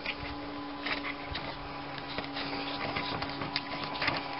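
A few light clicks and taps of a plastic engine fan and its bolts being handled as the fan is fitted onto a new fan clutch hub, over a steady low hum.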